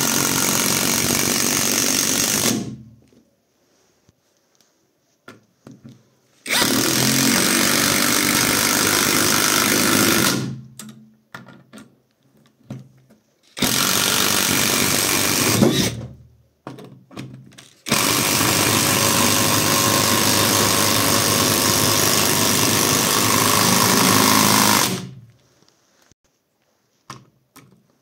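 Catpower 4226 cordless impact wrench driving long wood screws into a pine log. It runs in four long spells of a few seconds each, with short trigger blips and pauses in between.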